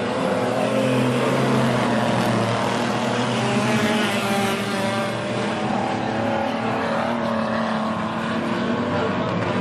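A pack of stock cars racing on a dirt oval, several engines running at once, their pitch rising and falling as they go round.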